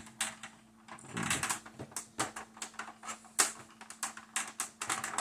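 Hard plastic clicking and knocking as a 1986 G.I. Joe Cobra Night Raven toy jet is handled and its landing gear is worked: many short, irregular clicks, the sharpest about three and a half seconds in.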